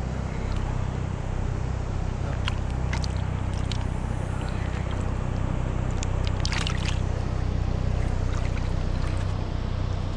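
A boat motor runs steadily at an even pitch, with a few brief clicks over it.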